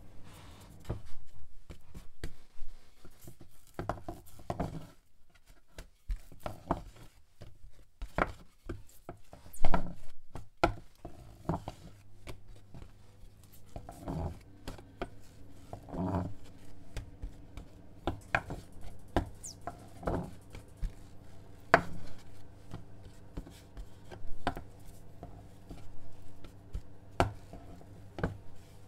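Ridged plastic rolling pin rolling out balls of bran bread dough on a wooden board: irregular knocks and rubbing as the pin is set down and pushed back and forth over the dough. A faint steady low hum runs underneath.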